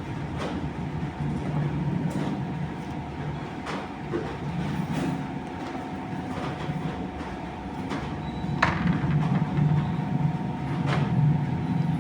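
Milking machine running with a steady low hum, with scattered clicks and knocks at uneven intervals, the sharpest about two-thirds of the way through.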